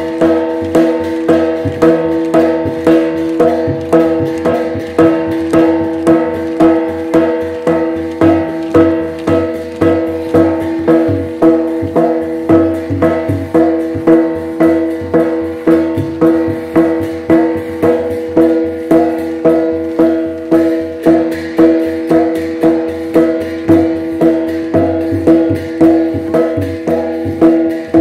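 Traditional Tai Yai (Shan) percussion music accompanying the To dance: a drum beats a steady, even rhythm while gongs ring on several sustained pitches.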